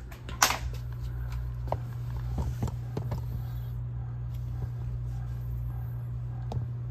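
Handling noise at a bench DC power supply: one sharp knock about half a second in, then several lighter clicks and taps as a gloved hand reaches for the supply's knobs, over a steady low hum.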